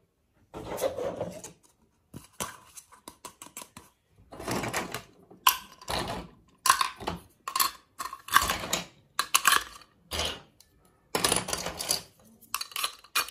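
Miniature plastic toy food skewers and pieces clicking and clattering as they are handled and dropped into a small toy cup, in a run of short rattles with brief pauses between.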